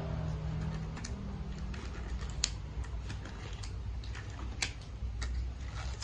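Hands handling small items: irregular light clicks and ticks, a few sharper than the rest, over a steady low hum.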